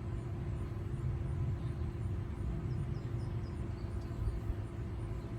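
Outdoor city ambience: a steady low rumble of distant traffic with a constant hum, and a few faint high chirps about three seconds in.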